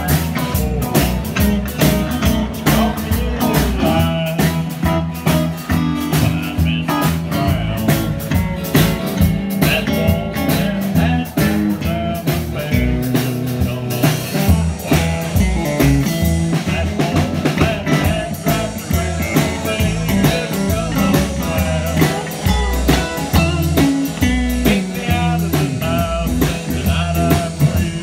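Live band music: a solid-body electric guitar played over a drum kit keeping a steady beat and a bass line.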